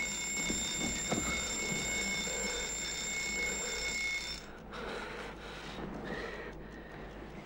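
Alarm clock ringing, a steady high ring that cuts off suddenly about four seconds in.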